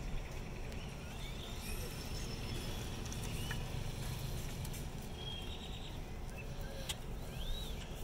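Grackles calling: a scatter of short rising and arched whistles and one sharp clack about seven seconds in, over a steady low rumble.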